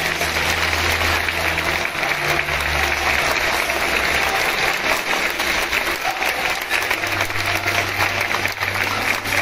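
Stadium crowd of football supporters applauding steadily, many hands clapping at once.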